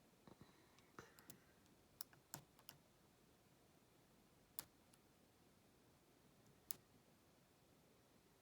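Faint, sparse clicks and taps of a lock pick and tension wrench working the pins inside a padlock: a handful in the first three seconds, then single clicks about four and a half and nearly seven seconds in.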